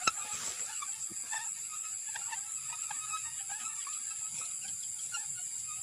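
Steady high-pitched chorus of crickets at night, with scattered small rustles and ticks of hands working through wet grass. A sharp click comes just after the start.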